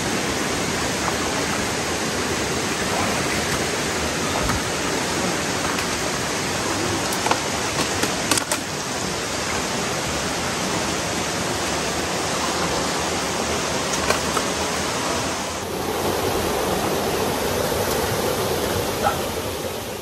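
Steady rush of river water flowing around the waders, loud and even, with a few brief sharp knocks or splashes around the middle.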